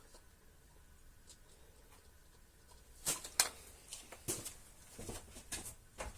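Irregular sharp metallic clicks and knocks of parts and tools being handled while the lower ball stud of a stabilizer link is fitted, starting about three seconds in.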